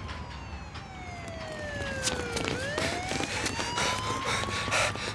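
A siren wailing: its pitch glides slowly down for about two and a half seconds, then turns and rises again, with scattered sharp clicks and knocks alongside.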